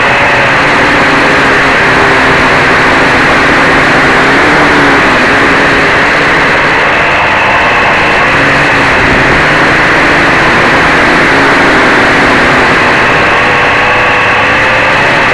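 Four DT750 brushless motors spinning 11x4.7 Gemfan propellers on an H-frame quadcopter in flight, heard from a camera on the airframe itself: a loud, steady drone of motors and props whose pitch rises and falls again and again as the throttle changes.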